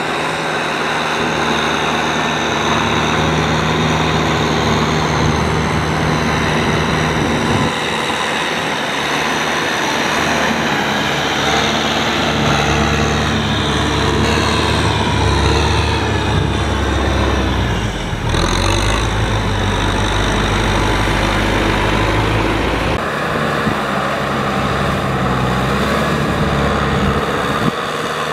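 Kubota M6040SU tractor's diesel engine running steadily under load as it works through flooded paddy mud with its blade and rotary tiller. The sound jumps abruptly about eight and twenty-three seconds in.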